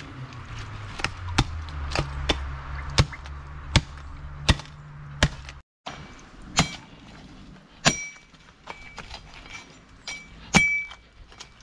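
A blade chopping a barracuda on a chopping block: sharp chops about every three-quarters of a second, a brief break about halfway, then fewer, sparser strikes, some ringing with a metallic clink.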